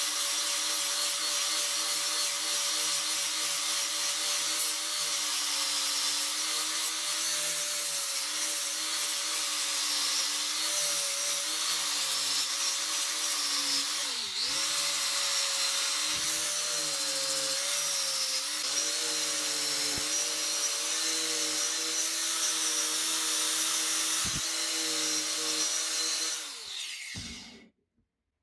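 Angle grinder with a grinding disc running steadily against the steel pane of a hammer head, its pitch wavering a little as it is pressed into the metal. Near the end the grinder is switched off and winds down to a stop.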